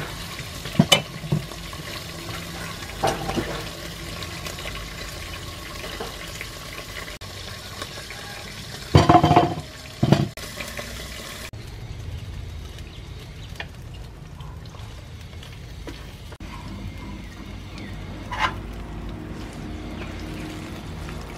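A kitchen knife cuts through a raw carrot onto a wooden chopping board, a few sharp knocks in the first seconds. The loudest sound is a clatter, twice, about nine and ten seconds in, over a steady background hiss.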